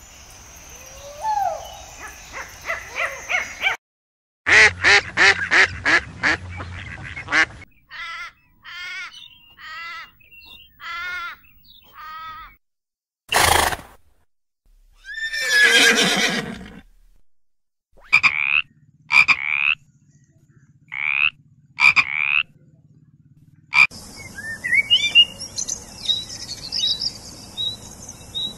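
A series of short animal calls cut one after another. About halfway through comes a horse's whinny, falling in pitch, and small birds chirp near the end.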